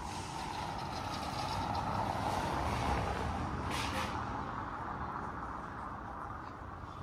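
A car driving past on a paved street, its tyre and engine noise growing louder, peaking a couple of seconds in and fading away. A short hiss about four seconds in.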